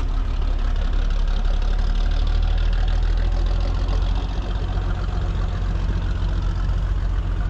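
A large engine idling steadily, a low, even rumble with no change in speed.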